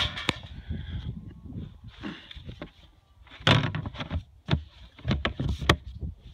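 Hollow plastic knocks and clatter as a scoop is handled in a plastic bucket of cattle cubes and a trash can's plastic lid is pressed down to close. There are a few knocks at the start and a run of sharp knocks from about three and a half to six seconds in.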